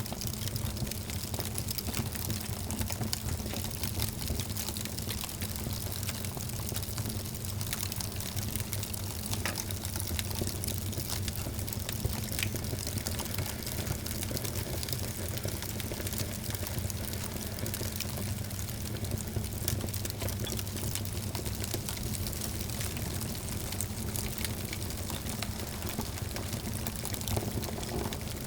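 Wood fire crackling steadily: a constant hiss with frequent small pops and snaps.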